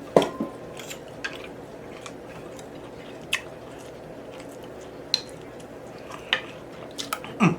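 A person eating: scattered short clicks and wet smacks, about one a second, over a faint steady room hum.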